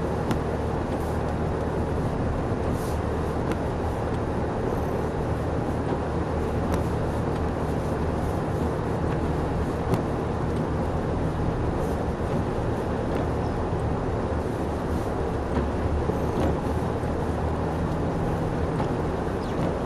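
Car cabin noise while driving on a snow-covered road: a steady low engine hum under the rushing of the tyres, with a few faint ticks.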